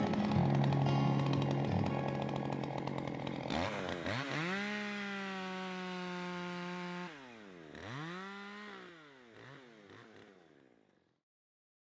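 A two-stroke chainsaw engine is opened up to full throttle, its pitch rising fast and holding steady for a couple of seconds. It is then let off and blipped up again a few times, each rise smaller, before fading out. Before that, the first few seconds are a louder, busier mix of chainsaw noise and music.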